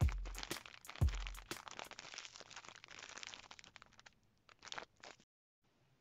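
Plastic zip-top freezer bag and cling film crinkling and crackling as hands press the air out around wrapped fish fillets, with two dull thumps in the first second or so. The crackling thins out after about four seconds, leaving a few short rustles.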